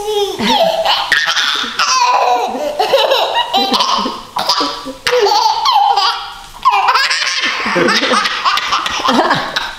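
A toddler girl laughing hard in long, high-pitched runs as she is swung about in a man's arms, breaking off briefly twice near the middle.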